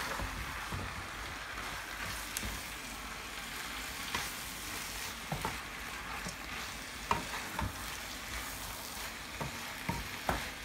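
Smoked fish, leeks and okra sizzling steadily in oil in a non-stick frying pan. Short scrapes and knocks of a wooden spatula stirring them come through, more often near the end.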